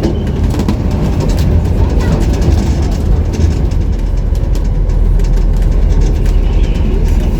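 Tour bus riding through city traffic: a steady, loud low rumble of engine and road noise, with frequent small rattles and knocks. The low rumble thickens in the second half.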